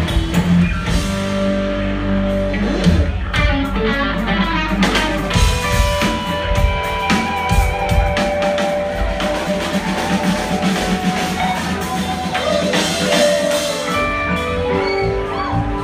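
Jam band playing live, heard from among the audience: drums, keyboards and electric guitar, with long held lead notes over the beat.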